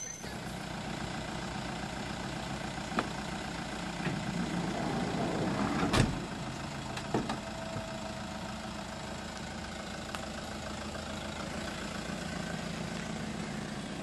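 Toyota Commuter van engine idling steadily, with a few sharp knocks, the loudest about six seconds in.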